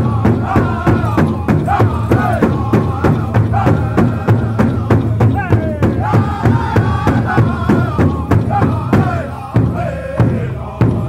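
Northern-style powwow drum group singing a chicken dance song: many voices singing together over a large hide powwow drum struck by several drummers in a fast, even beat. Near the end the beat thins to a few single hard strikes.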